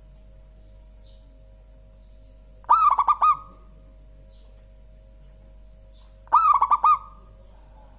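Zebra dove (perkutut) cooing: two quick phrases of rapid, pitched coo notes, about three and a half seconds apart.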